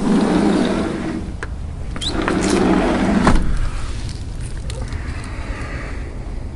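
Sliding glass door rolling along its track as it is pushed open, then rolling again about two seconds in and stopping with a sharp bump.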